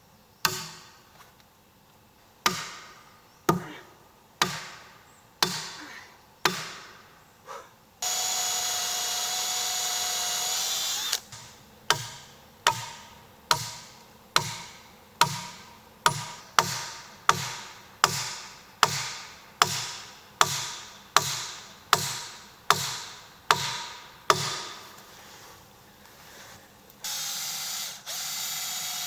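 Hammer driving nails into wood with sharp ringing blows, about one a second at first and then faster in a long run. Twice a cordless drill runs steadily for a few seconds, pre-drilling nail holes: once about eight seconds in, and again near the end.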